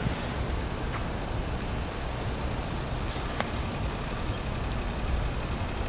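Steady city street traffic noise from cars and trucks passing on a busy avenue, a deep even rumble with no single vehicle standing out.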